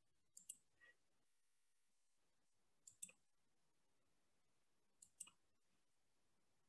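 Faint computer mouse clicks: three double clicks, about two and a half seconds apart.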